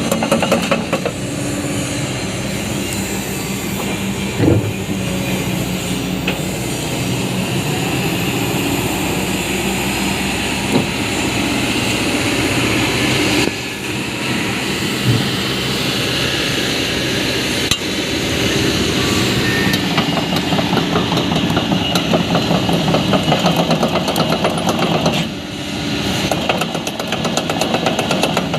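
Kobelco SK200 hydraulic excavator's diesel engine running steadily, with a few sharp clunks and knocks over the engine note.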